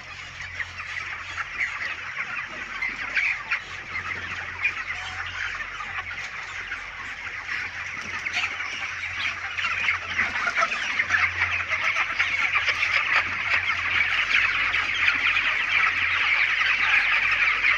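A large flock of 28-day-old broiler chickens clucking and chirping together in a dense, continuous chatter that grows louder toward the end, over a steady low hum.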